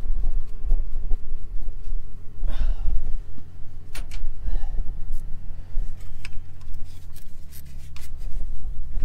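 Hand work on a tractor: a few short metal clinks and rubbing scrapes over a low steady hum that shifts slightly in pitch about seven seconds in.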